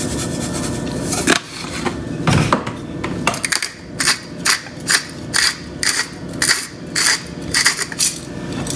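Salt shaken from a shaker into a skillet of pasta: a run of about a dozen short, crisp rattling shakes, roughly two a second, through the second half.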